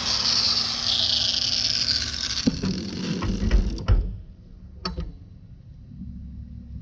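Power cutting tool on aluminum, its motor noise with a falling whine as it winds down, then a few clunks and knocks of metal being handled; the tool noise stops abruptly about four seconds in, followed by one more knock.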